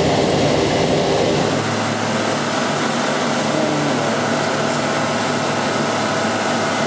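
Steady mechanical hum of running machine-shop machinery, a CNC machining centre among it. About a second and a half in, a low rumble drops away, leaving an even hum with a few held tones.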